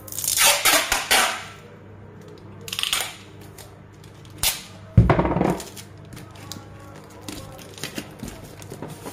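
Cardboard packing box wrapped in plastic film being handled and moved on a table: crinkling scrapes, a long crackling rustle near the start and a heavy thump about five seconds in.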